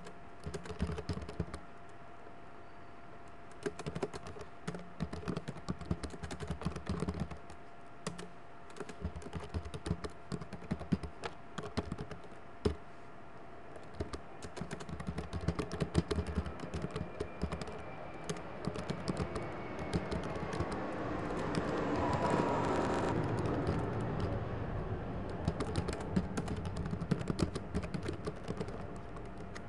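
Typing on a computer keyboard: irregular runs of keystrokes with short pauses between words. In the second half a broad rushing sound swells and fades under the typing.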